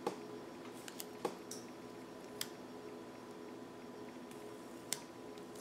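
Quiet handling of planner stickers and paper: a few faint scattered clicks and light taps, spaced a second or more apart, over a low steady hum.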